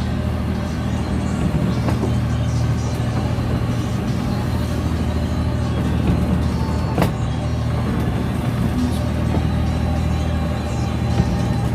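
Steady low drone of an engine running, with one sharp click about seven seconds in.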